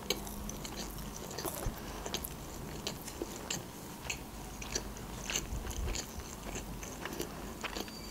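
A person chewing a mouthful of sushi roll close to the microphone, mouth closed: a steady run of small wet clicks and soft crackles.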